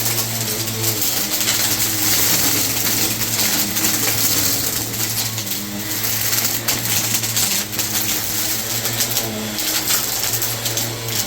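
Vacuum cleaner running steadily: a loud motor hiss over a low hum, its pitch wavering every second or two.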